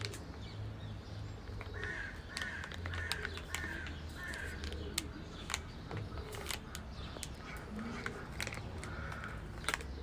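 A bird cawing about five times in quick succession starting about two seconds in, and once more near the end, over scattered light clicks and rustling.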